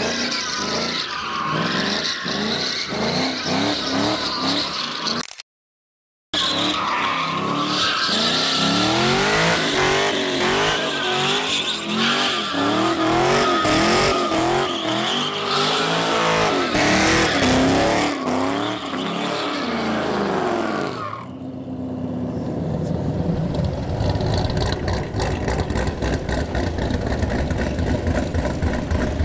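Cammed LS V8 Chevrolet Camaro doing donuts, its engine revving up and down over squealing, skidding rear tyres, with a brief cut to silence about five seconds in. About three-quarters of the way through the squeal stops and the engine settles to a lower, steadier run.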